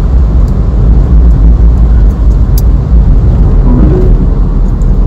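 Loud, steady low rumbling noise, with a faint click about two and a half seconds in.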